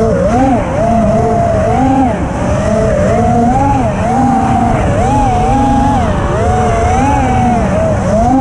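FPV racing quadcopter's brushless motors (TBS Mr. Steele Silk) whining as heard from on board, the pitch constantly rising and falling with throttle changes, over a low rushing noise.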